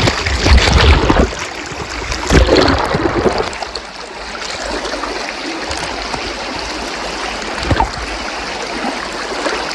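Water from a small waterfall below a dam pouring and splashing steadily. There are a few low thuds on the microphone in the first three seconds.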